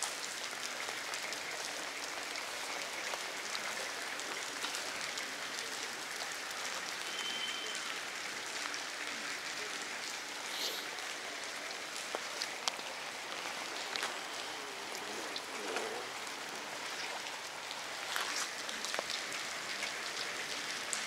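Steady rain falling: an even hiss with a few scattered sharp ticks of drops.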